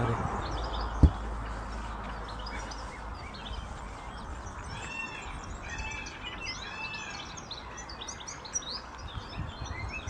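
Several kinds of songbirds chirping and singing together, with a run of repeated arching whistled notes midway. A single dull thump comes about a second in, over a low steady background rumble.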